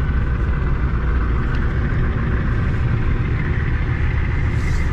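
Ford F-250's 7.3-litre non-turbo diesel engine running steadily at low road speed, a deep even rumble heard from inside the cab.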